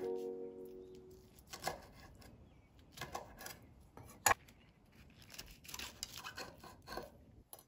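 A kitchen knife cutting through rehydrated wood ear mushrooms on a wooden cutting board: scattered short slicing and scraping strokes, with a sharp knock of the blade on the board about four seconds in. A few music notes fade out at the very start.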